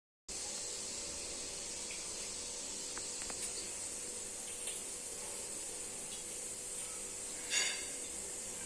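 Steam hissing steadily from a pressure cooker, with a short, louder spurt about seven and a half seconds in.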